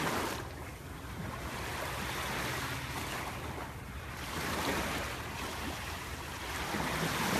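Ocean waves washing, a steady rush of water that swells and eases every couple of seconds.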